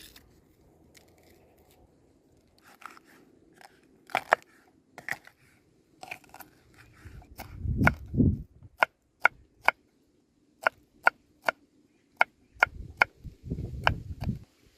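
A knife chopping on a cutting board: a run of sharp, evenly spaced strokes, about two and a half a second, from about halfway through, with a few dull thumps and scattered clatter.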